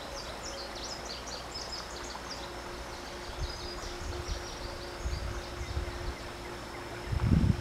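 A small bird chirping a quick series of high notes, fading out after about four seconds, over a faint steady high insect buzz. Low thumps come near the end.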